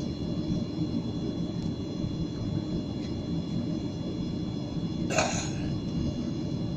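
Cabin noise inside a Boeing 737-800 on the ground: its CFM56 engines idling and the cabin air running, heard as a steady low rumble with a faint high steady whine. A brief rustle about five seconds in.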